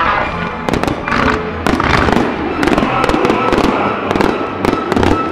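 Firework display going off: a rapid run of sharp bangs and cracks from shells and comets firing, several a second, over the display's music soundtrack.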